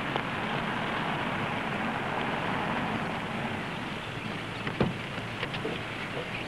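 Steady outdoor hiss that swells slightly and eases off, with one sharp knock about five seconds in.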